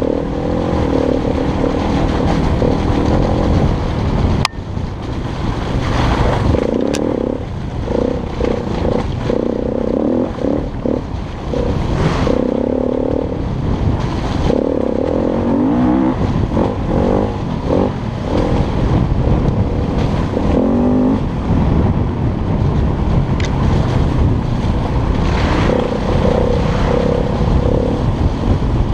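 Off-road motorcycle engine revving and easing off over and over as the bike rides through deep mud ruts, with a constant rushing noise beneath it. There is a sharp knock about four and a half seconds in.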